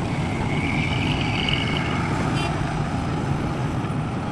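Steady low rumble of a running vehicle, with a thin high whine from about half a second in to about two seconds in.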